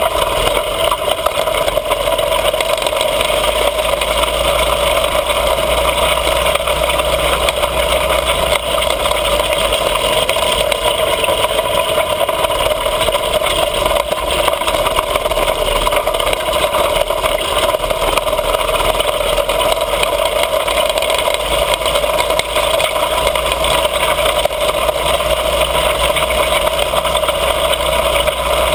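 Mini bike's small engine running steadily while under way, heard loud and close with a constant drone and no pauses.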